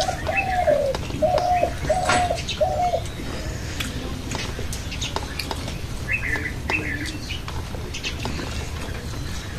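A bird calling a run of about five short, even notes in the first three seconds, with small birds chirping in higher, brief calls about six seconds in, and a few light clicks.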